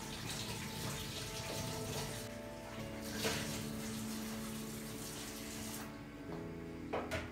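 Water running from a tap, cutting off about six seconds in, over soft background music with held notes; a sharp knock near the end.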